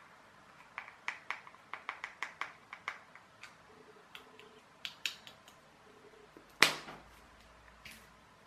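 A metal teaspoon clicking and tapping against small plastic bottle caps and a tub while bicarbonate of soda is spooned out: a quick run of light taps, then a few more. About two-thirds of the way through comes one much louder knock as something is set down on the table.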